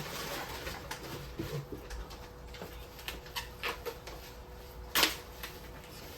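Handling noise from a cardboard Funko Pop box being opened: scattered small taps and rustles, with one louder sharp click or snap about five seconds in.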